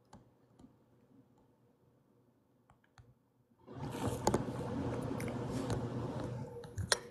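A few faint taps, then about three seconds of rustling, rubbing handling noise as a hand works the phone near its microphone, ending in a couple of sharp clicks.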